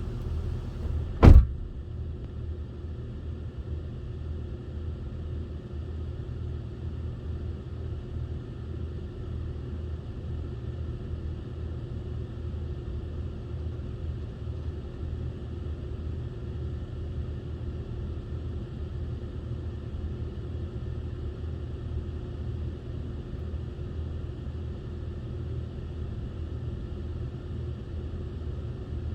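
Idling car engine, a steady low rumble, with one sharp loud bang about a second in.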